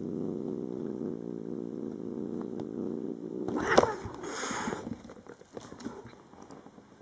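Domestic cat purring close to the microphone, a steady low rumble, then a short sharp cry about four seconds in, followed by rustling and small scuffling sounds as the cat rolls and paws.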